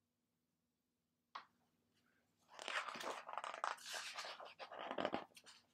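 Paper pages of a picture book rustling and crackling as the book is handled and a page is turned, starting about two and a half seconds in after a single small click.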